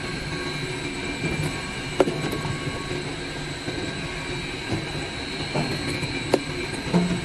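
Deric laundry soap bar cutting machine running steadily, with a thin steady high whine over the machine noise. Sharp knocks about two seconds in and twice near the end.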